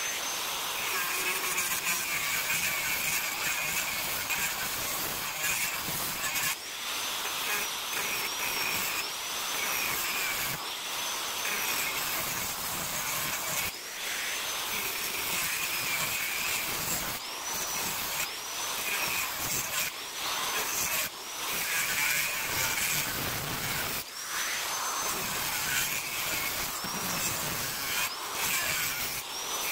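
Angle grinder with a thin cutting disc running and cutting into a scrap copper-tube radiator. Its whine rises and falls in pitch again and again as the disc bites in and eases off, with a few short breaks.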